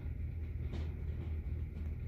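Steady low rumble of background room noise, with one faint brief tap about three-quarters of a second in.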